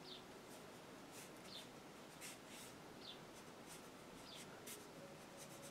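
Faint, scratchy strokes of a paintbrush on watercolour paper, with a few short, high, falling chirps about a second and a half apart.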